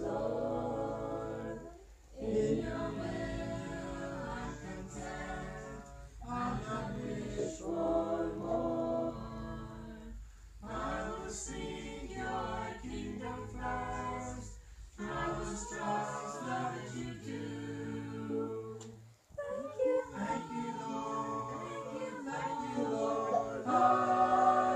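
A group of men and women singing together unaccompanied, in phrases of about four seconds with short breaks between them, growing louder near the end.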